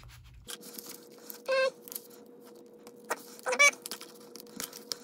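Two short, high squeaks, about a second and a half in and again about three and a half seconds in, as a suction cup and a plastic opening pick work at an iPhone 5's stuck screen. A few faint clicks and a thin steady hum sit underneath.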